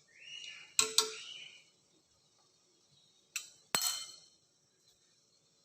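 Kitchenware clinking as it is handled: two pairs of sharp clinks with a short ring, one pair about a second in and another near four seconds in.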